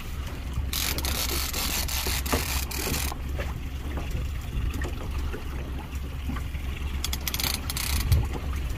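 Wind buffeting the microphone on a small open boat at sea, a steady low rumble with scattered knocks. Two bursts of rushing hiss come through, one lasting about two seconds from about a second in and a shorter one near the end.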